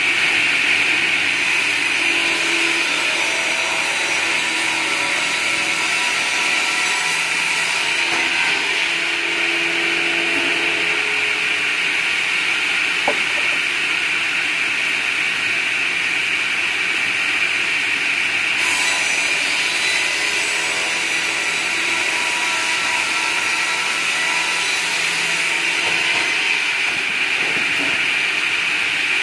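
A sawmill's large circular blade runs steadily while ripping a log fed past it on a sliding carriage. The sound turns brighter about two-thirds of the way through.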